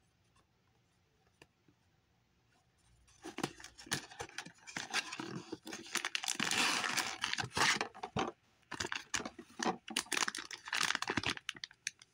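Foil blind-box bag being crinkled and torn open by hand. Dense crackling starts about three seconds in and comes in bursts with short pauses.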